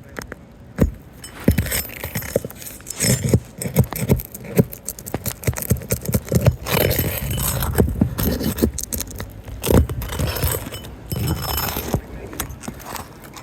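Irregular scraping, clinking and knocks of hand tools and asphalt shingles being worked and handled on a roof.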